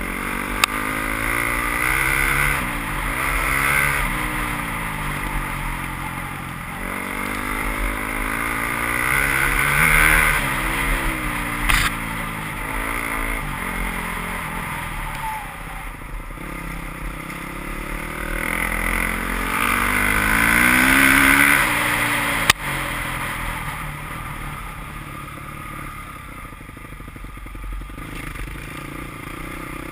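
Enduro dirt-bike engine, close to the microphone, revving up and falling back again and again as the rider accelerates and eases off over a rough dirt trail. A few sharp knocks cut through.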